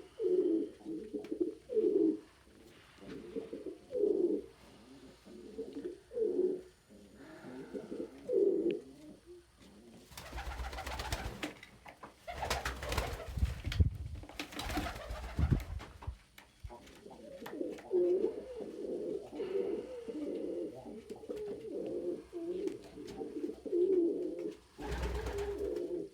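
Domestic pigeons cooing over and over in low, pulsing phrases. Midway the cooing gives way for several seconds to louder scuffling noise, then resumes.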